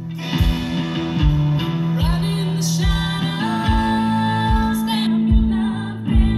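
Live band playing through a PA: electric guitars, bass guitar, banjo and drums, with a kick drum beating steadily about every 0.8 seconds under sustained bass notes. Vocals come in about two seconds in, including one note held for over a second.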